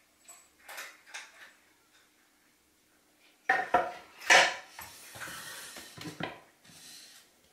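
A ceramic cat food bowl of dry kibble clinking and knocking as it is handled and set into a wooden stand. The loudest sharp clinks come a little past halfway, followed by a rustling scrape and one more clink.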